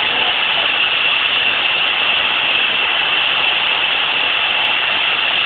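Large vertical band saw in a woodworking shop running, a loud, steady, unbroken noise.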